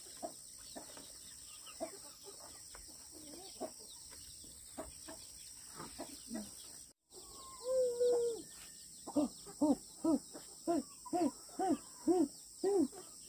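Chickens calling in a farmyard: scattered short calls, then, after a break about halfway through, a chicken clucks in a steady series of rising-and-falling calls about twice a second.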